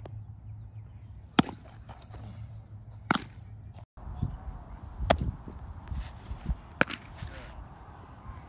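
Baseball popping into a catcher's mitt four times, sharp single smacks about one and a half to two seconds apart, as pitches are received.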